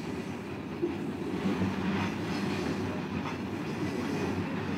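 Iron ore train rolling along, heard from on board an open ore wagon: a steady low rumble of the wagons with a few faint knocks.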